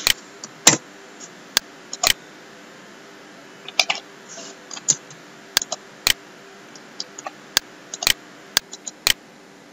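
Computer mouse and keyboard clicks: about a dozen single sharp clicks at irregular intervals, over a faint steady hum.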